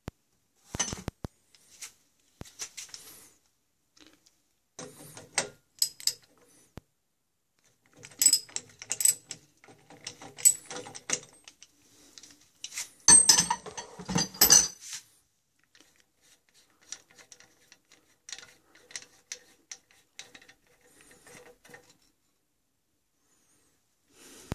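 Scattered metal clicks, clinks and scrapes as the threaded strainer-screen plug is worked out of a brass water pressure regulator, with the loudest clatter in a cluster about halfway through.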